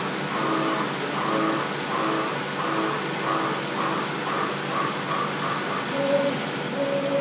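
CNC machining center milling 16MnCr5 steel with a 16 mm end mill at 1600 rpm, taking a deep 70 mm cut dry. There is a steady cutting noise with a pitched tone that swells and fades about twice a second as the tool sweeps through its path.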